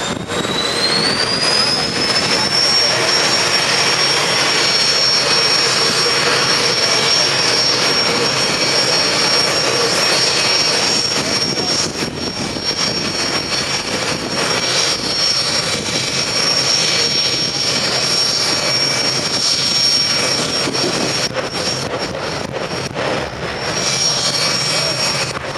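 Jet funny car's turbine engine spooling up, its whine rising in pitch over the first couple of seconds, then holding a steady high whine over a continuous rush.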